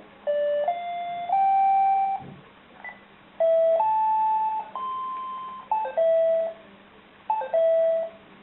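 A Casio MQ-1200 calculator's electronic beeper playing pure single notes, a different pitch for each number keyed. The notes come in short rising runs of two or three, some held for about a second, with short pauses between runs.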